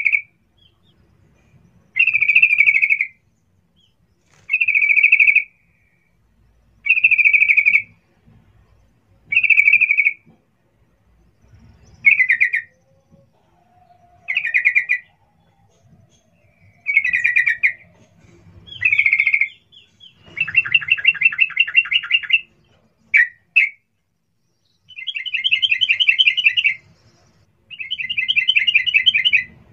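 Yellow-vented bulbul (trucukan) singing: short phrases repeated about every two and a half seconds, then, in the last third, longer fast rattling phrases broken by two quick notes.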